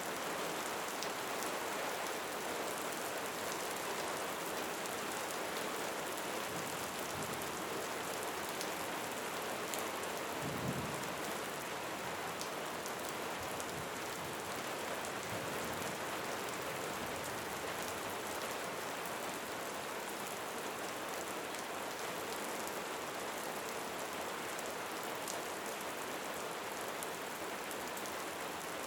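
Steady rain falling, with the ticks of single drops heard through the wash. About ten seconds in there is a brief low rumble.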